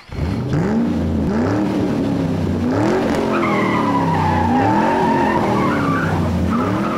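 A car engine revving up and down over and over, loud, with tyres squealing from about three seconds in.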